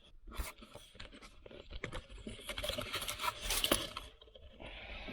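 Aluminium foil being torn and crumpled by hand: a run of crinkling, crackling rustles with many sharp little ticks, busiest about two-thirds of the way through.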